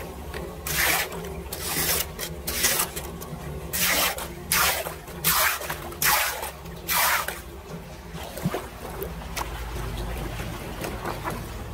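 Muddy floodwater flowing into a kerbside storm drain grate, with a run of short splashing, scraping strokes as a plastic leaf rake is dragged through the water and over the inlet to clear debris, about eight strokes in the first seven seconds. After that only the steady sound of water flowing remains.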